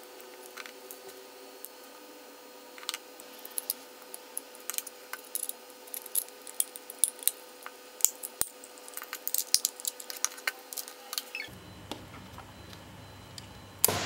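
Irregular sharp plastic clicks and taps from a Logitech M170 wireless mouse being handled and put back together by hand: a small screwdriver working a screw, then the shell and battery compartment being fitted. The clicks come thickest in the middle.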